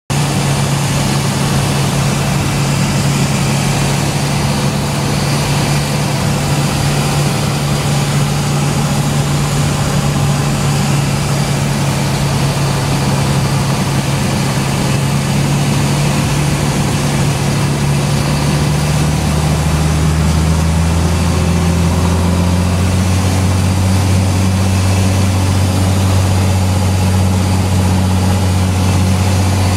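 Light aircraft's piston engine and propeller running with a steady drone; from about eighteen seconds in, the pitch glides down over a few seconds to a lower steady drone as the engine slows, as when power is reduced for landing.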